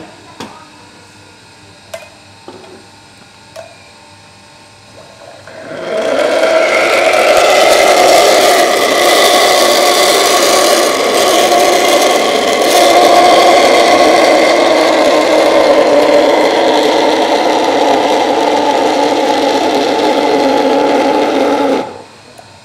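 Espresso machine steam wand heating chocolate in a stainless steel pitcher: a loud, steady hiss with a steady tone in it, which starts about six seconds in and cuts off sharply about sixteen seconds later. Before it there are a few light clinks as the pitcher is set up.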